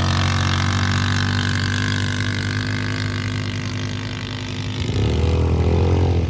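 Off-road safari bike's engine running steadily at idle, then revved about five seconds in, its pitch and level rising.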